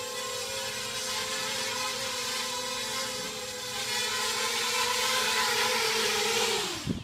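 Miniquad's brushless motors and propellers whining steadily in hover, growing louder as it comes closer. Near the end the whine falls sharply in pitch as the motors spool down, with a brief knock as it sets down.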